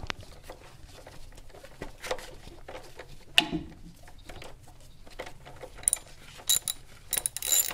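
Ratchet wrench with a 10 mm socket on an extension loosening an ignition coil hold-down bolt: scattered light clicks and one sharp knock about three and a half seconds in, then a quick run of ratchet clicks from about six seconds in.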